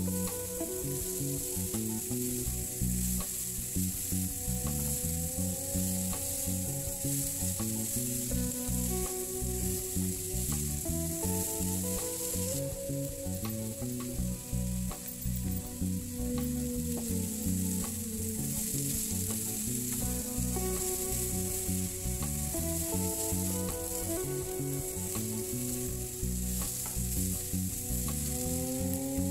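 Diced potatoes and carrots sizzling steadily as they fry in a pan, stirred with a plastic spatula that scrapes and taps against the pan many times.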